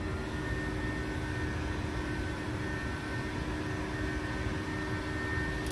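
Handheld electric heat gun running steadily, its fan blowing with a constant hum and a thin high whine, as it heats vinyl wrap film.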